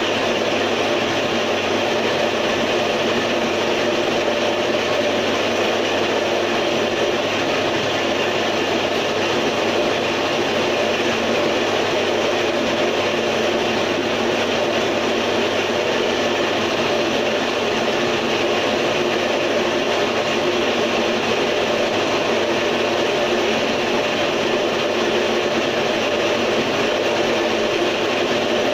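Homemade tofu-straining machine running steadily: its small motor hums as it drives the swinging sieve.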